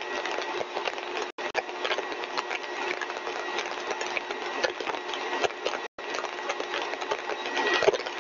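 Lab compressor rig running at its full design speed: a steady mechanical noise with dense crackling clicks and two faint steady tones, one low and one high. The sound cuts out for an instant twice.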